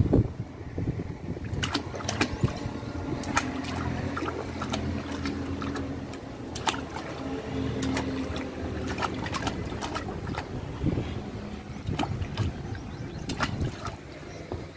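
A baby's hands slapping and splashing the water of a shallow inflatable paddling pool: irregular short splashes, over a low steady hum.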